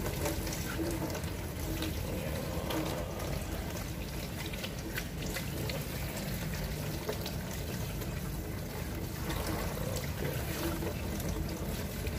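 Water spraying steadily from a handheld shower head onto hair and draining into a salon wash basin during a hair rinse.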